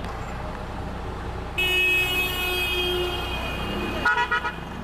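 A vehicle horn sounds for about a second and a half, then gives four or five short quick beeps near the end. Underneath is the steady low drone of a Mercedes-Benz O-500M bus engine running through a holed exhaust.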